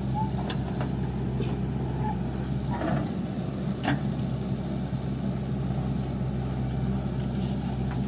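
Backhoe loader's diesel engine running steadily while the backhoe arm digs soil, with a few short knocks, the loudest about four seconds in.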